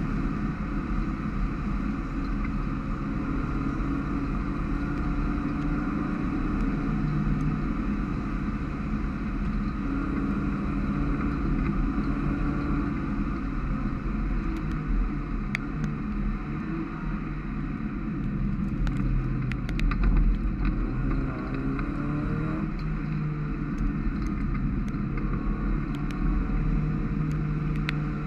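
Mazda MX-5 race car's four-cylinder engine heard from inside the cockpit at racing speed on a wet track, its note climbing and dropping in steps as the revs rise and the gears change, over a steady hiss. About halfway through comes a run of sharp ticks.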